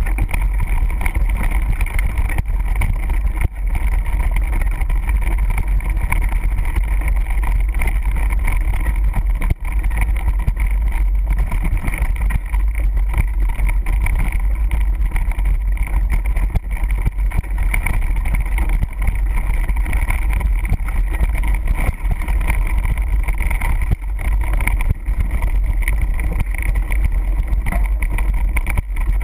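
Wind buffeting the microphone of a bike-mounted camera in a steady deep rumble, mixed with the running noise of a mountain bike's tyres on loose volcanic cinder gravel during a fast descent.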